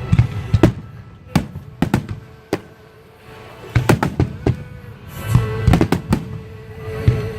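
Aerial fireworks bursting in quick, irregular volleys of sharp bangs, with a short lull in the middle, over music with a long held note.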